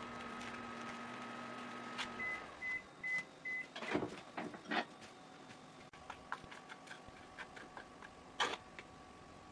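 Microwave oven running with a steady hum that stops about two seconds in, followed by a string of about five short beeps marking the end of heating. A few clicks and knocks follow.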